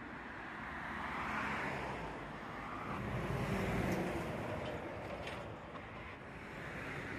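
Road traffic going by, its noise swelling twice as vehicles pass.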